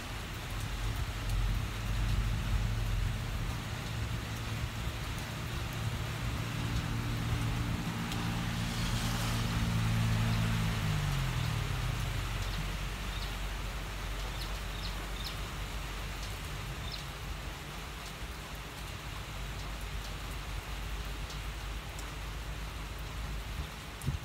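Steady rain hissing down on wet ground and water. Through roughly the first half a vehicle engine hums underneath, dropping in pitch and fading away about eleven seconds in.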